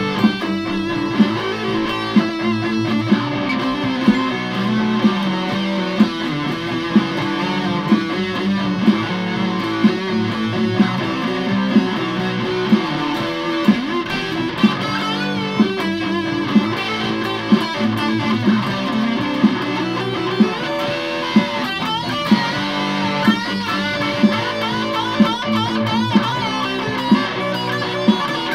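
Ibanez GAX75 electric guitar with an Ibanez Infinity bridge pickup, played amplified: riffs and lead lines with bent and wavering notes. A steady beat of sharp accents comes about every three-quarters of a second.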